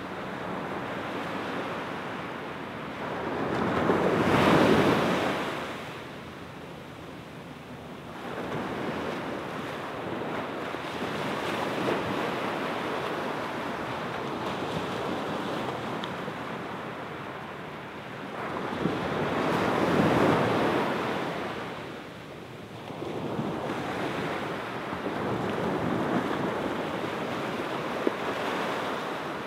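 Small waves breaking and washing up a sand beach. The surf swells and fades in slow surges, loudest about four seconds in and again around twenty seconds.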